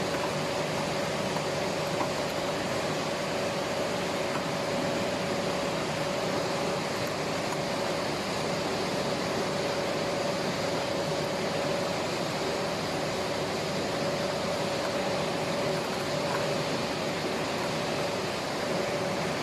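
Steady machine hum and hiss with a constant mid-pitched whine, unchanging in level.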